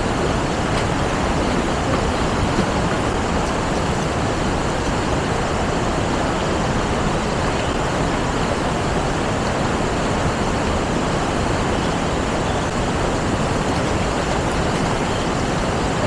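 Steady rush of a shallow rocky river running over rapids.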